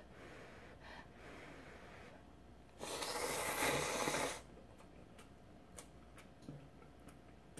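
A person slurping ramen noodles: one long, loud slurp about three seconds in, lasting about a second and a half, then faint small clicks of eating.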